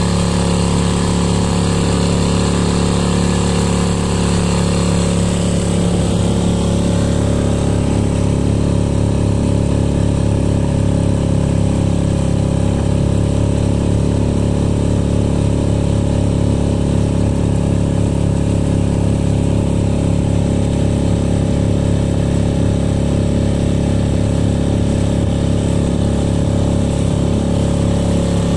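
Sail F 2.5 outboard motor, a small single-cylinder four-stroke clone of the Yamaha F 2.5, running steadily at an even pitch with the boat under way.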